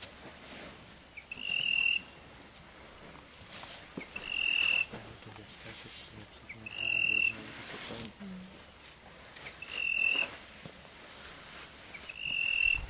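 A wild animal calling: a short high note that swells and then cuts off, repeated about every three seconds, five times.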